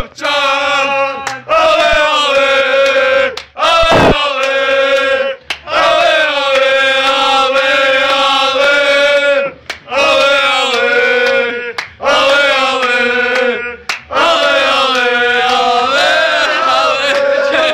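A group of men singing a chant together loudly, in long held phrases separated by short breaths.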